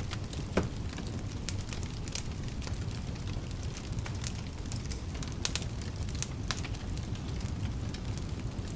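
Wood fire burning in a fireplace, crackling with frequent sharp pops and snaps over a steady low rumble of the flames; one louder pop about half a second in.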